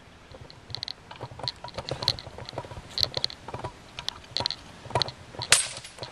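Swords clashing in sparring: a series of sharp clacks, some with a short ring, with the loudest clash near the end.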